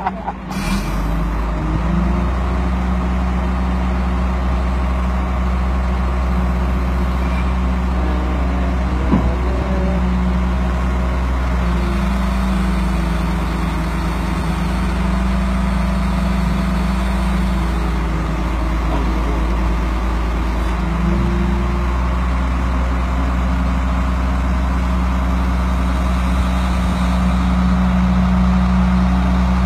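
Truck-mounted boat crane's engine running steadily under load, driving the hydraulics as the crane hoists a small fishing boat out of the water. Its tone shifts slightly about twelve seconds in and again about twenty-one seconds in.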